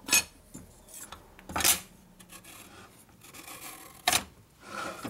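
Steel and friction clutch plates being pushed and worked into a Rivera Primo clutch basket: four short metal-on-metal scrapes and rubs. The plates are a tight fit in the basket.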